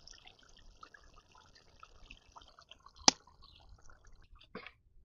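Thick pork curry bubbling in a steel pot, with many small plops and pops. A single sharp click sounds about three seconds in, and a softer knock near the end.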